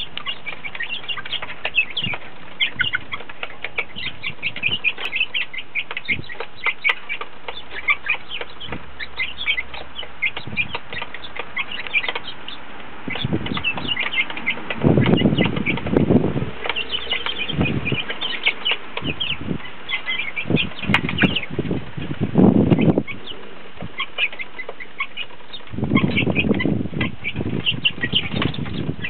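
Young red sex-link chickens peeping continually in short, high calls while they feed. A few louder bursts of wing flapping and scuffling come through among them.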